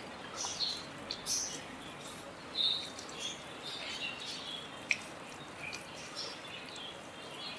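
Faint, irregular wet squelches and squeaks of hands rubbing a spice marinade into a whole raw chicken.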